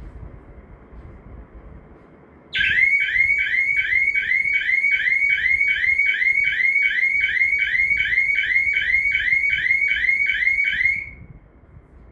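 Anti-theft intrusion alarm sounding its electronic siren: a loud, rapid rising chirp repeated about three times a second. It starts suddenly about two and a half seconds in and stops about eleven seconds in. It is the signal that the sensor has detected someone within range.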